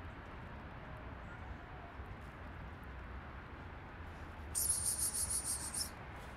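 A high-pitched trilling call of rapid, even pulses, lasting about a second and a half just past the middle, over a steady low background hum.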